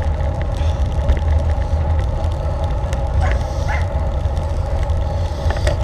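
Wind buffeting the microphone of a camera on a road bike ridden at speed, over a steady hum of tyres on tarmac.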